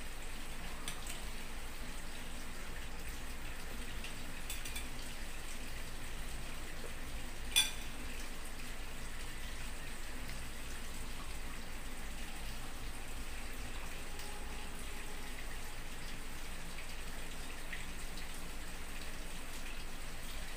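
Steady background hiss with a low rumble, broken by one sharp clink of a fork against a plate about seven and a half seconds in and a few fainter clicks of cutlery and dishes.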